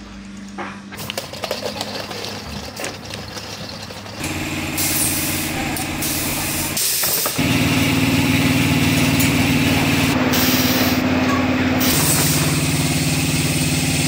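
Scattered clicks and knocks of hand work for the first few seconds. Then a steady machine drone sets in, gets louder about halfway through and shifts in pitch twice.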